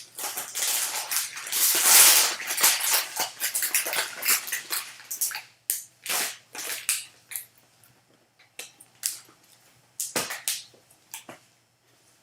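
A foil trading-card pack being torn open, its wrapper crinkling loudly for about five seconds. Then scattered short rustles and clicks as the cards are slid out and handled.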